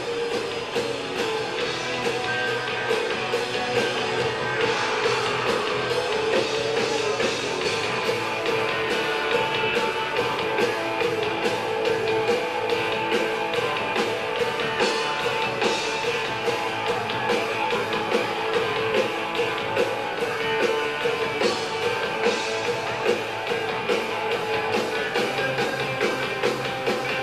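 A live rock band playing: electric guitars, bass and drums, with a steady drum beat.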